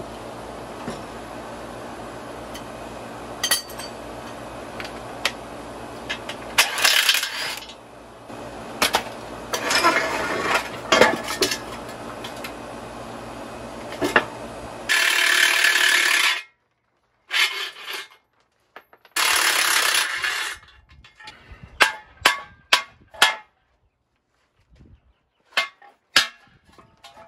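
Hand tools on a steel BMW E36 suspension crossmember: ratchet rasps and metal knocks over a steady hum. Partway through, two short bursts of a cordless impact wrench, then a string of sharp metallic clinks as bolts and parts are handled and set down.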